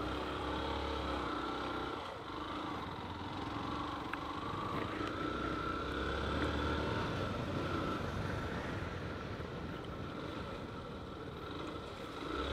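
Motorcycle engine running as the bike is ridden, its note wavering slightly up and down.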